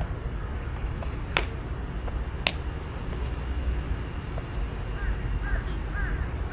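Open-air ambience at a baseball field: a steady low rumble of wind and background noise, broken by two sharp cracks about a second apart. Faint bird chirps come in near the end.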